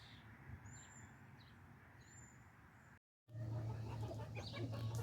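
Faint outdoor ambience with two short, high bird calls. About three seconds in, after a brief gap, backyard chickens start clucking over a steady low hum.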